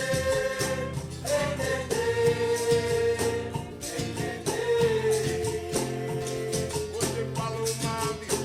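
A song playing: singing with long held notes over a steady bass line, with rattling hand percussion keeping the beat.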